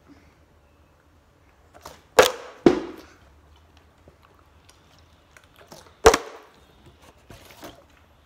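A partly filled plastic water bottle landing hard on a tabletop as it is flipped: a sharp knock about two seconds in, a second knock half a second later, and another about six seconds in.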